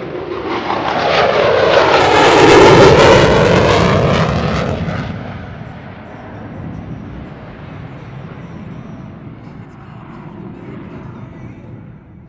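Twin-engine F-22 Raptor jet passing close overhead: the jet noise swells to a loud peak about three seconds in, sweeping in pitch as it goes by, then falls away to a steady distant rumble.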